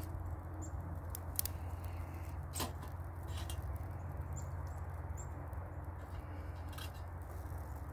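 Small dry twigs snapped by hand and fed into a small folding wood-burning camp stove: a few sharp, scattered cracks over a low steady rumble.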